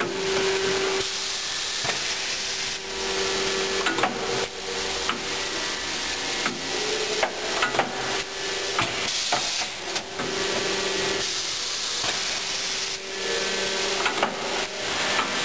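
Marden Edwards stretch banding machine dry cycling: its mechanisms clack and knock again and again over a bed of air hiss, and a humming tone starts and stops several times.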